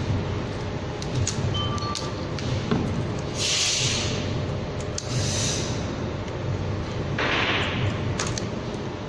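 Parts of a labeling machine's label-roll holder being fitted by hand: light clicks and knocks of metal and plastic, with three short scraping hisses a second or two apart in the second half, over a steady low hum.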